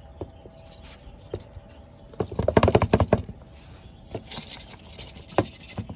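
Cookware being handled: a dense run of clattering knocks about two seconds in, lasting about a second, with a few single sharp clicks before and after.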